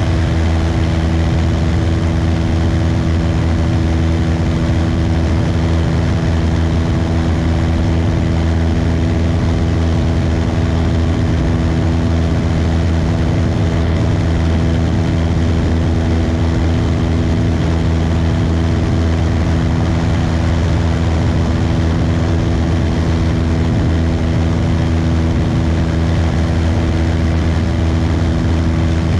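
Cessna 172's piston engine and propeller running steadily during the climb-out after takeoff, an even drone with no change in pitch or level.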